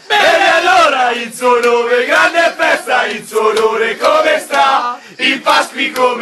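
A group of men chanting loudly together, a rowdy drinking chant with the pitch rising and falling.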